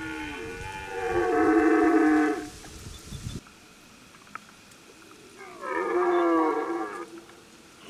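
Red deer stag roaring in the rut: two long, loud bellows, one about a second in and one near the end, each about a second and a half long.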